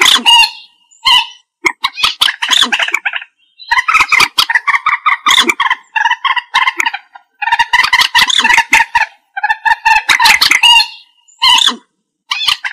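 Common moorhen calling: bouts of rapid, harsh, stuttering calls, each lasting about one to two seconds, with short pauses between them.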